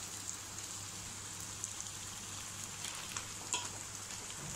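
Rice-flour nachos chips deep-frying in hot oil in a kadai: a steady sizzle, with a couple of faint clicks about three seconds in.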